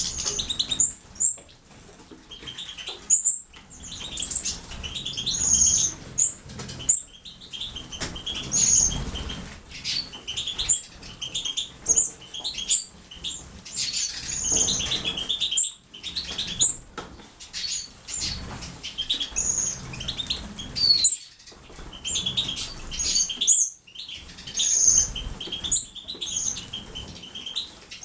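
Small pet birds bathing: wings fluttering and splashing in water in repeated short bursts, with many quick high chirps throughout.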